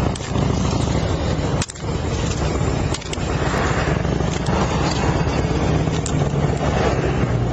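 A vehicle engine running at the roadside, a steady low rumble under a noisy hiss, with a few sharp clicks and brief scrapes of handling close to the microphone.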